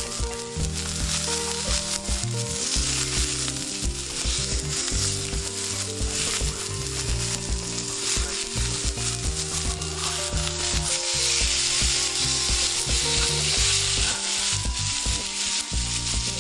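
Beef steak sizzling steadily in a hot Nanbu cast-iron skillet. The sizzle grows louder in the second half, over quiet background music.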